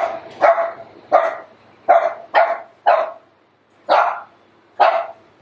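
Small Shih Tzu dog barking repeatedly while playing with a ball: about eight sharp barks, roughly two a second, with a short pause a little past halfway.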